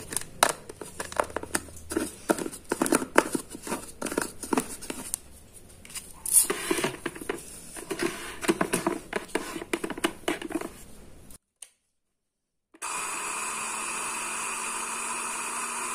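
Plastic lid and glass jar clicking and knocking as the jar is handled and seated on a blender base. About 13 seconds in, a Miyako blender's motor starts and runs steadily, grinding fish-feed pellets and dried shrimp flour into powder.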